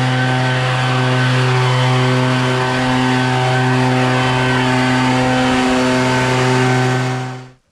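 Small gasoline engine running steadily at high speed, holding one pitch, then cutting off abruptly near the end.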